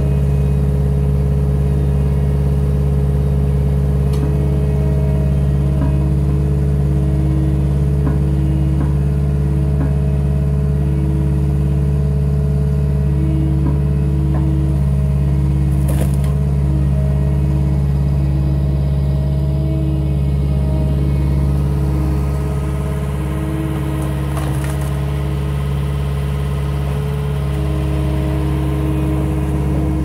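Cat 262D skid steer's diesel engine running steadily under load, with a higher tone coming and going every second or two as its hydraulics work the inverted log splitter. Sharp cracks sound twice, about four seconds in and near the middle, as the oak splits.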